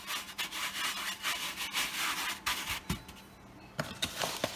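Hand rubbing and spreading dry cornmeal across a metal baking sheet: a gritty scraping in quick strokes for about three seconds. A few light sharp taps follow near the end.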